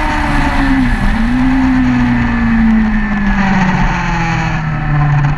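Onboard sound of a track motorcycle's engine with wind rush. The engine note breaks briefly for a gear change about a second in, then falls steadily as the bike slows and leans into a corner, and starts to rise again near the end as it drives out.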